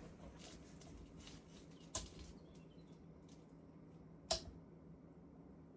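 Two short, sharp clicks about two seconds apart over a faint, steady low hum.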